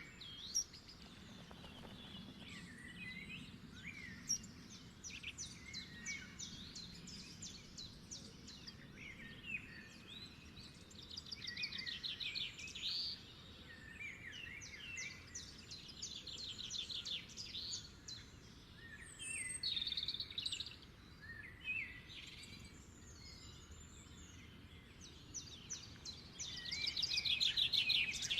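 Birds chirping and singing, with several rapid trills of quick repeated notes, over faint steady outdoor background noise.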